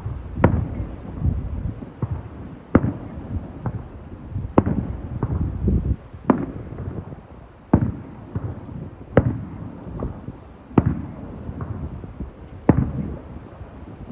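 Fireworks display: aerial shells bursting in a series of sharp bangs, roughly one every one to two seconds, with a low rumble between them.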